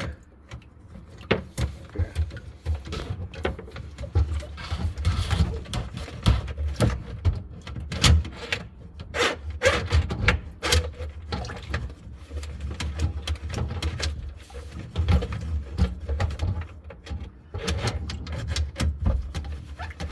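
Irregular knocks, clicks and scraping as a plumber's drain snake is handled and worked at the drain, over a steady low hum.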